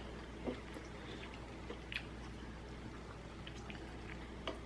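Quiet chewing of ramen noodles, with a few faint, short clicks spread through.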